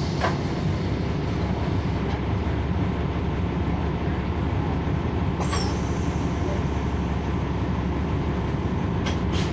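Cummins ISL9 diesel engine and ZF Ecolife automatic transmission of a NABI 40-SFW transit bus running steadily while the bus is under way, heard from inside the bus. Three brief rattles or clicks cut through the drone, about halfway and near the start and end.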